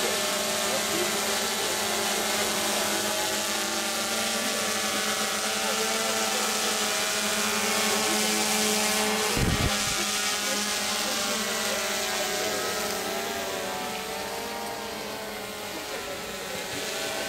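A motor engine drones steadily, its pitch wavering slowly up and down, with a brief low thump about nine and a half seconds in.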